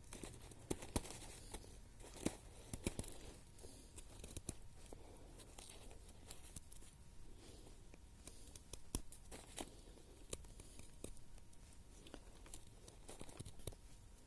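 Dry wood snapping and crackling faintly in many small, irregular cracks, with light rustling between them.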